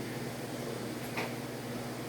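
Steady low hum with one faint, short tap or click a little over a second in.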